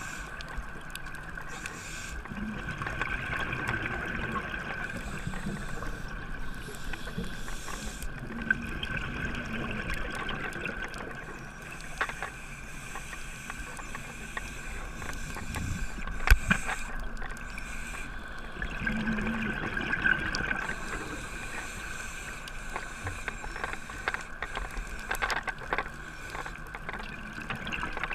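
Underwater sound through a camera housing: a scuba diver's regulator breathing, with exhaled bubbles swelling every several seconds over a steady hum. Scattered clicks, and one sharp knock about halfway through.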